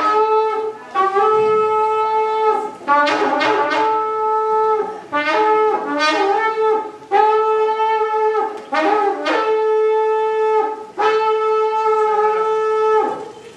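A shofar blown in a series of long, steady blasts on one note, broken by quick warbling runs between blasts. The last blast stops shortly before the end.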